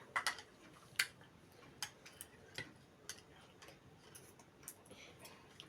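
Eating sounds close to the microphone: scattered sharp clicks and smacks, roughly one a second.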